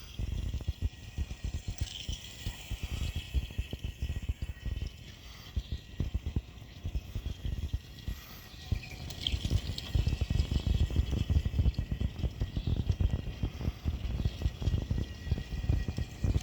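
Faller Car System model vehicle driving over a 3D-printed PLA roadbed: a dense, fast rattling and ticking that grows louder about ten seconds in.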